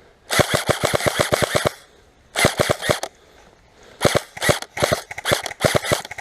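Airsoft rifle firing full-auto: a burst of about fourteen rapid shots at roughly ten a second, a shorter burst about a second later, then scattered single shots and pairs from about four seconds in.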